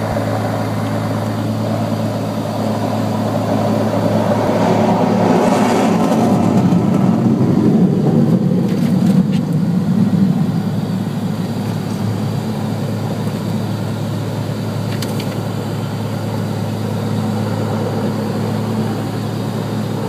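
A propeller plane's engine idling steadily, heard from inside its cabin, under the roar of an F-16 fighter jet taking off, which swells about a fifth of the way in, is loudest around the middle, then fades as the jet climbs away.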